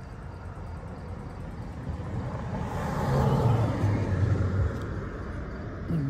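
A car passing on the street: a rush of tyre and engine noise that swells to its loudest about three seconds in and then fades, its low engine hum dropping in pitch as it goes by.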